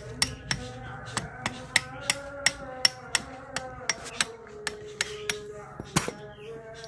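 Hammer striking metal, about three sharp blows a second, each leaving a ringing tone.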